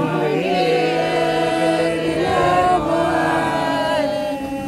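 Church congregation chanting together: many voices holding long, overlapping notes in a liturgical sung response, fading slightly near the end.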